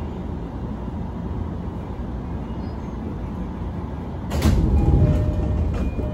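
Interior of a stopped commuter train car with a steady low hum, then about four seconds in the side doors slide open with a sudden thud and a rush of noise.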